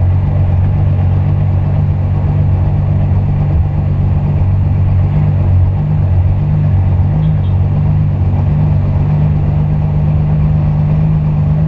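Turbocharged VW VR6 engine running at steady low revs, a deep drone heard from inside the car's cabin.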